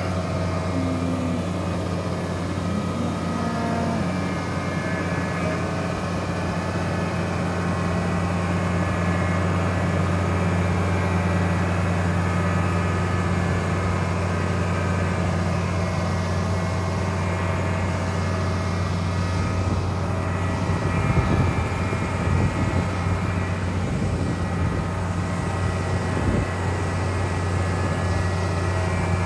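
Diesel engine of a Daewoo Solar 130W-V wheeled excavator running steadily while the machine works, with uneven low thumps around twenty seconds in.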